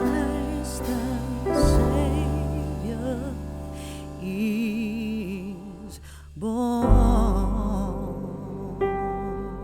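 Slow background music: a wavering vibrato melody over held chords and a deep bass. It thins out around six seconds in, then comes back fuller just before seven.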